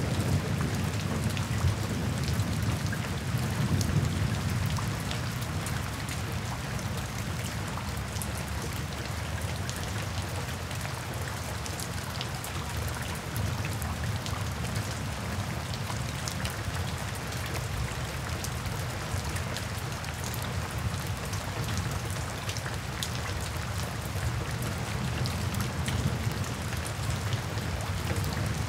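Steady heavy rain falling, with many separate drops striking a surface. Under it a low rumble of thunder, strongest at the start, dies away over the first several seconds and builds again near the end.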